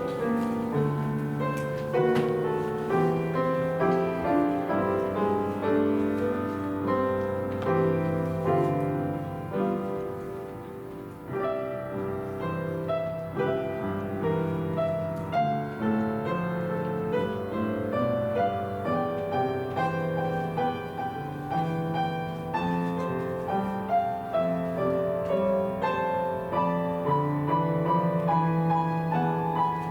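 Piano playing a slow, gentle piece of offertory music.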